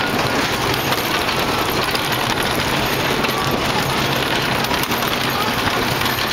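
Lightning Racer wooden roller coaster train running on its track: a steady mechanical rumble with a low hum and fast rattling clatter.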